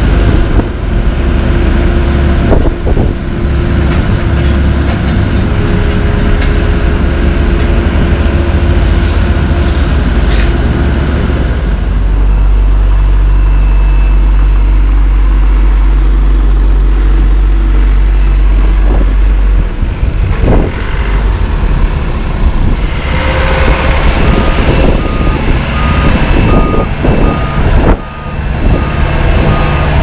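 Diesel engines of asphalt compaction rollers running steadily. In the last several seconds a reversing alarm beeps about twice a second.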